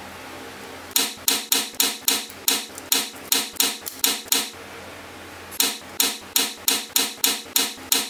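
Blocks of 5 mm neodymium magnetic balls clicking sharply as they snap together, a quick series of about three to four clicks a second, a pause of about a second in the middle, then another series. A faint steady hum underneath.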